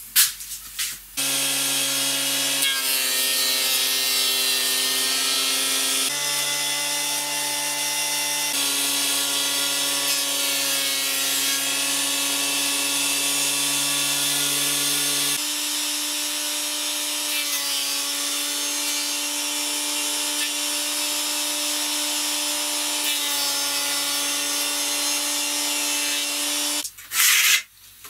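Electric thickness planer running and planing wood: a steady whine over a hiss of cutting, its pitch stepping up or down a few times as the load changes.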